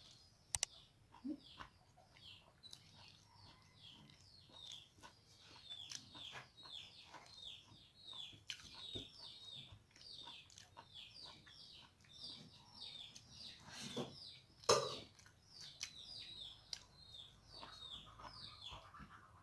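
Small birds chirping in the background: a quick falling chirp repeated two or three times a second. There are soft clicks of eating by hand, and one louder knock about three-quarters of the way through.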